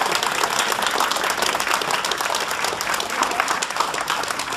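Crowd of spectators applauding, many hands clapping at an even level.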